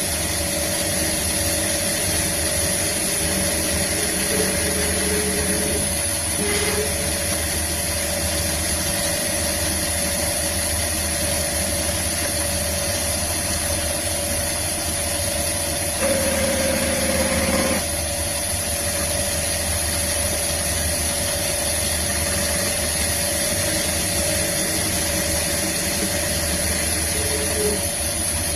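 CNC lathe running: a steady machine hum with a constant high whine. For about two seconds a little past halfway it grows louder, with a stronger mid-pitched tone.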